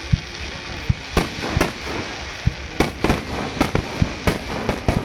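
Aerial firework shells bursting in quick succession in a display's finale barrage: about a dozen sharp booms over a few seconds, with crackling between them.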